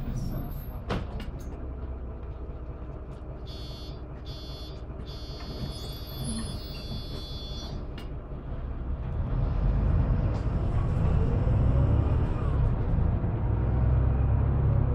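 Mercedes-Benz OM926LA diesel engine of a Conecto LF city bus, heard from inside the cabin, running as the bus drives along. About nine seconds in it grows louder and deeper, with a rising pitch, as the bus accelerates.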